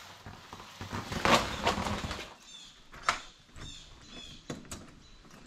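An 8-inch flexible corrugated plastic duct hose being pulled and handled across a concrete floor, rustling and crinkling in irregular bursts, with a few sharp clicks.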